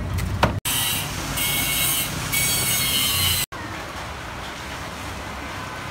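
Two cleaver chops on a wooden chopping block, then a loud steady hiss with faint high ringing tones for about three seconds, cutting off abruptly into quieter steady background noise.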